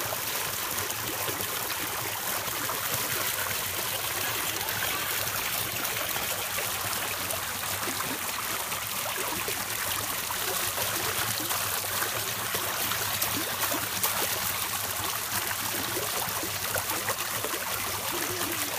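Water pouring steadily from a spout into a shallow concrete basin, with small irregular splashes from hands slapping the water.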